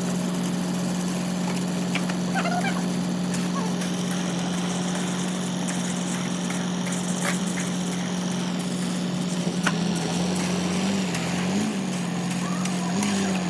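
A machine's motor running with a steady hum, its pitch wobbling up and down in the last few seconds, with a few faint knocks over it.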